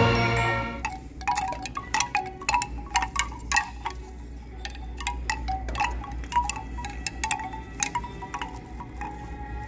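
Hanging bamboo-tube wind chimes clacking irregularly as a hand jostles them, many quick wooden knocks in loose clusters. Background music fades out in the first second.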